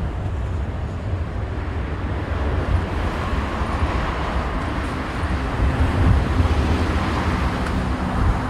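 Airbus A350-900's Rolls-Royce Trent XWB jet engines at takeoff power: a steady rushing jet noise that grows a little louder about three seconds in, with wind buffeting the microphone.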